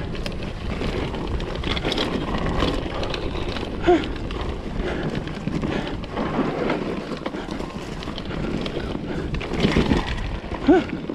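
Wind buffeting the action-camera microphone over steady clattering and rattling, typical of riding a mountain bike over rough ground, with two brief pitched chirps, about four seconds in and near the end.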